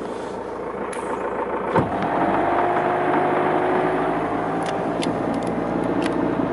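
Motorboat engine running steadily. About two seconds in there is a short sharp knock, and the engine then opens up to a louder, fuller note that holds steady.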